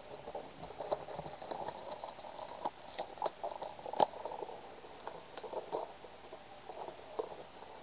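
Cardboard and plastic wrap of a trading-card blaster box being cut open with a craft knife and handled: crinkling and rustling with scattered clicks and taps, one sharper click about four seconds in.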